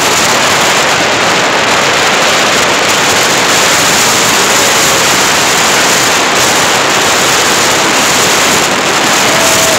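Jet boat under way at speed: a loud, steady rush of noise in which engine, water and wind blend, with no distinct engine note.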